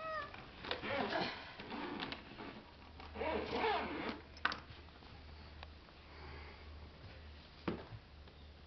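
A kitten being shut into a backpack cat carrier: fabric rustling and the carrier's zipper pulled closed in a few rasping strokes, with a short high cry right at the start and a couple of sharp clicks later on.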